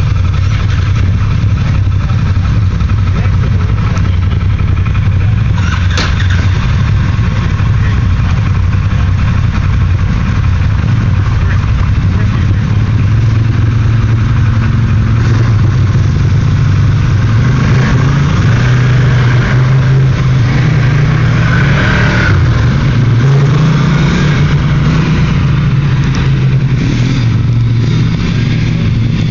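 Arctic Cat Wildcat 1000 side-by-sides' V-twin engines idling steadily close by. Near the end, some pull away with rising revs.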